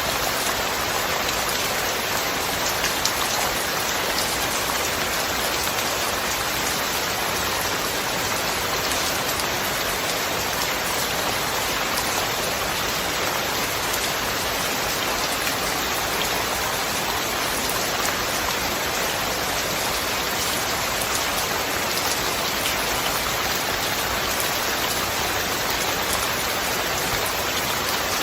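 Steady rain: an even hiss with a fine patter of drops, holding at one level throughout, with no thunder.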